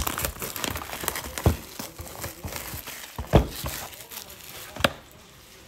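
Plastic shrink wrap crinkling as it is cut and stripped off a Panini Prizm football hobby box, with a few knocks of the cardboard box and lid being handled, the loudest about three and a half seconds in.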